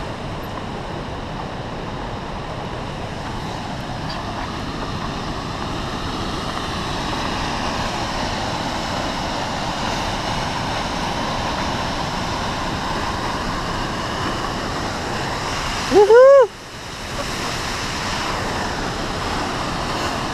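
Sahalie Falls' waterfall rushing steadily, growing a little louder as it comes into view. About three-quarters of the way through, a short loud squeal rises and falls in pitch, and the sound briefly drops away just after it.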